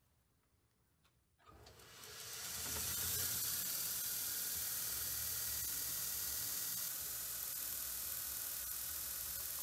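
Belt grinder mounted on an old surface grinder switched on about a second and a half in: the motor spins up, then the abrasive belt runs steadily over the contact wheel with a high hiss and a low hum.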